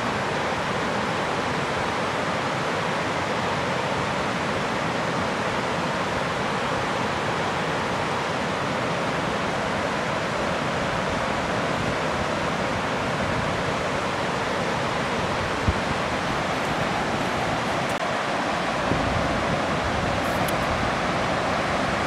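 Whitewater rapids of a mountain river rushing steadily over boulders.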